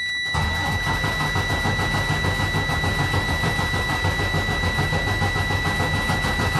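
Heavy-duty Detroit Diesel inline-six truck engine fires about a third of a second in and runs at idle with a rapid, even pulse. This is the first start after injector cup replacement with the fuel system refilled. A steady high-pitched tone runs underneath.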